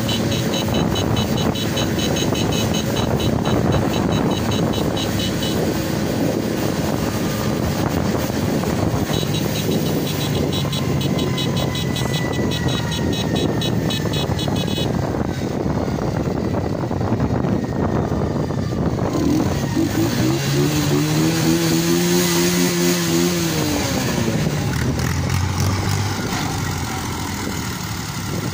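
Several farm tractors' diesel engines running together as a convoy moves slowly along the road. About two-thirds of the way through, one engine revs up and falls back.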